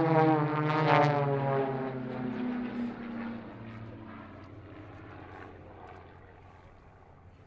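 Formation of aerobatic Extra 330SC and Edge 540 monoplanes passing overhead, their flat-six piston engines and propellers droning. The pitch falls steadily as they go by; the sound is loudest about a second in, then fades away.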